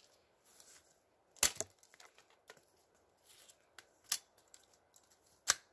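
Becker BK9 Bowie knife chopping and cutting into a thin wooden pole: a few sharp, separate strikes, the loudest about a second and a half in and others near four and five and a half seconds, with lighter cuts and ticks between.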